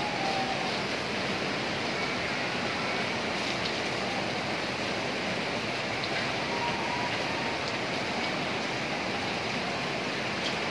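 Muddy floodwater of a swollen river rushing past, a steady unbroken noise of fast turbulent water.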